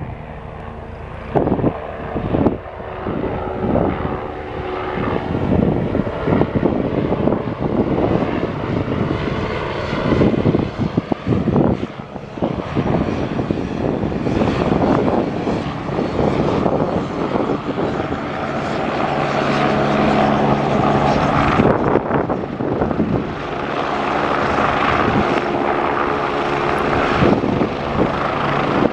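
2002 Agusta A109E Power twin-turbine helicopter in flight on approach: main rotor beating over the whine of the turbines, growing louder as it comes closer and low over the field, with steady tones in the second half.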